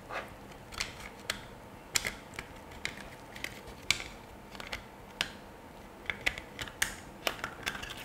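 Touch wall-switch panel being handled and its glass front panel fitted onto the base: scattered light clicks and taps, roughly two a second, at an uneven pace.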